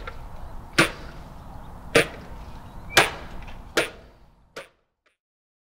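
Small outboard motor being pull-started: five quick zipping yanks of the recoil starter cord, about one a second, the last one weaker, without the engine catching. Then the sound cuts out.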